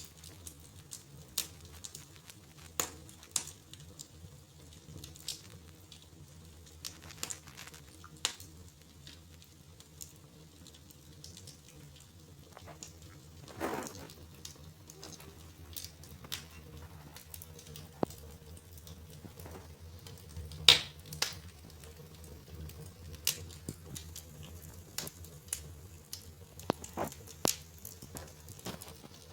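Wood fire in a fireplace crackling, with irregular sharp pops and snaps, one much louder pop about two-thirds of the way through.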